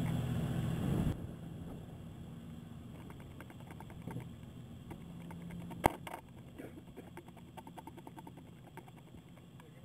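A steady engine hum cuts off abruptly about a second in. Then come faint scattered ticks and scuffs as a Messerschmitt Bf 109E is pushed by hand on its wheels across asphalt, with one sharp click a little after halfway.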